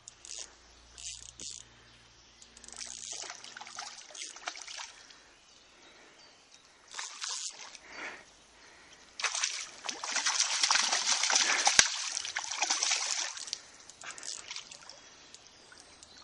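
Water splashing and sloshing in scattered short bursts, then loudest for about four seconds in the middle as a hooked fish thrashes at the surface against a light spinning rod.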